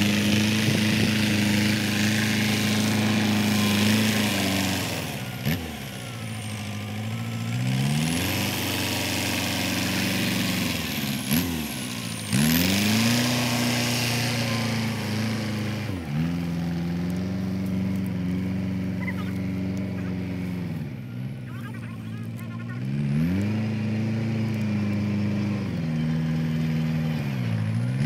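Belarus tractor's diesel engine running hard under load, straining to drag a cassava-laden trailer sunk in sticky mud. The revs drop away and climb back up about five times as the throttle is eased off and opened again.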